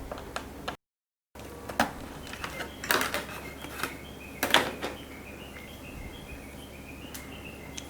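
Laptop plastic bottom cover being unscrewed and taken off: a few sharp clicks and knocks of plastic and screwdriver, the loudest about four and a half seconds in, over a low steady hum.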